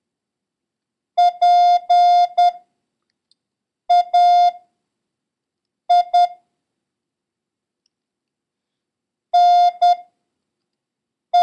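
Morse code practice tone, a steady beep keyed in dits and dahs, sending the word PAINT letter by letter (·−−· ·− ·· −· −) with long silent gaps between the letters; the final T begins right at the end.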